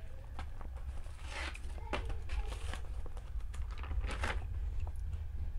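Low steady hum with a few soft rustles and faint ticks.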